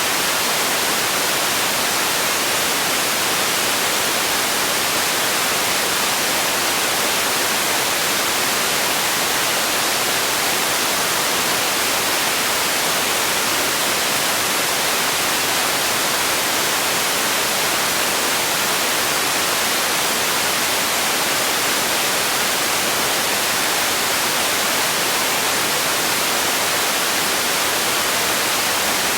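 Steady generated noise for sleep: an even, static-like hiss, bright and thin with little bass, that does not change.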